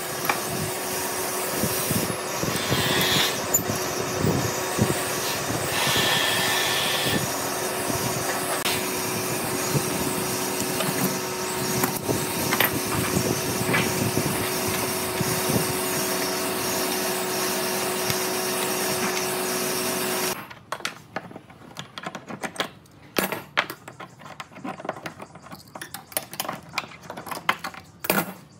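A woodworking shop power tool or machine running steadily with a constant whirring hum, cutting off suddenly about twenty seconds in. After it, scattered light knocks and clicks of metal clamps and wood being handled.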